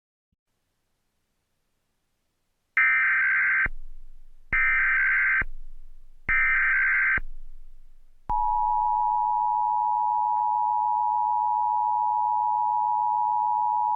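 Emergency Alert System test tones: about three seconds in, three short bursts of digital SAME header data tones, each about a second long with about a second between, then about eight seconds in the steady two-tone EAS attention signal starts, loud and unbroken.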